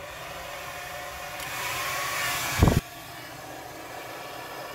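Handheld hair dryer running steadily, blowing wet acrylic paint across a canvas to spread it in a Dutch pour. It gets louder partway through, with a short loud low thump about two and a half seconds in.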